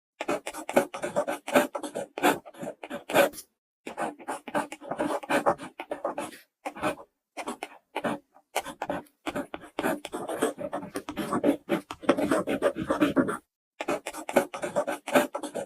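Dubbed-in pen-writing sound effect: a pen scratching across paper in rapid short strokes, with a few brief pauses.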